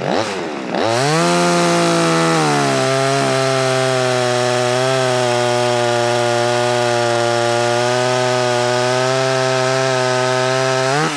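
Cheap Chinese Stihl-clone top-handle two-stroke chainsaw cutting through a log. It is blipped a couple of times, then held at full throttle. The pitch dips as the chain bites into the wood and holds steady under load through the cut, then rises sharply near the end as the bar breaks through.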